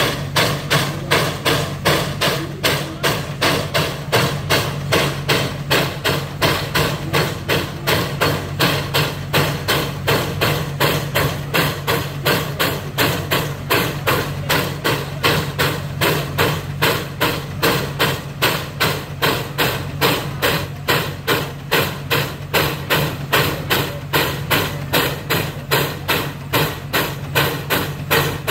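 McLaren steam roller working hard under load while pulling a weighted sled: a steady, rhythmic steam exhaust beat up the chimney, about two chuffs a second, over a steady low hum.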